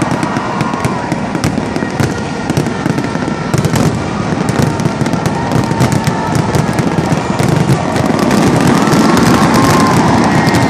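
Fireworks display: a dense, continuous barrage of crackling bursts and deep booms overlapping one another, growing a little louder in the last few seconds.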